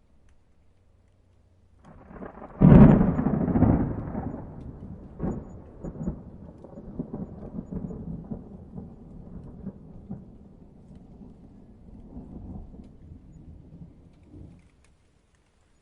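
A thunderclap: a low rumble builds, then a loud sharp crack about three seconds in, followed by long rolling rumbles with scattered crackles that fade out over about ten seconds.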